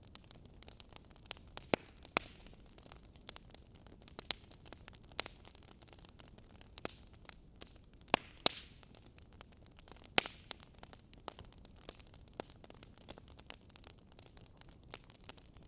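Wood fire crackling in a fireplace: irregular sharp pops and snaps over a faint hiss, with the loudest pair of pops about eight seconds in.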